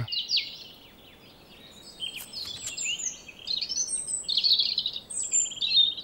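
European robin singing its spring song to attract a mate: thin, high warbling phrases. A short phrase comes first, then a pause of about a second, then a longer run of varied phrases. Near the end a rapid, even trill begins.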